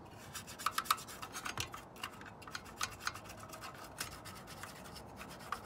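Toothbrush scrubbing caked dust and tar off the fan opening and plastic shroud in a computer's sheet-metal frame: quick, irregular scratchy strokes.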